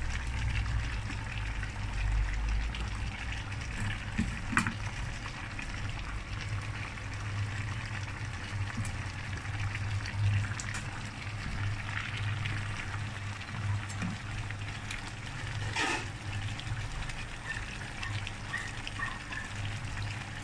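Pan of braised pork ribs and vegetables simmering in sauce: a steady hiss of cooking liquid over a low hum, with a light click about four seconds in and another near sixteen seconds.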